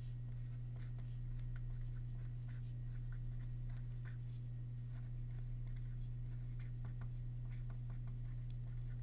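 A pen writing a line of handwriting on paper: many short scratching strokes, over a steady low hum.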